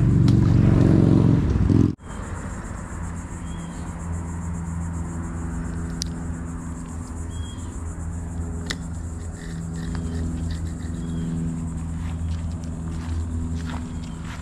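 Motor vehicle engine noise from road traffic: a loud steady engine sound for the first two seconds that stops abruptly, then a lower continuous engine drone with a few light clicks.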